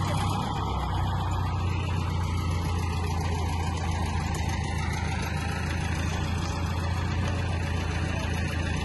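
Mobile crane's diesel engine running at a steady low drone under load as it hoists a tractor.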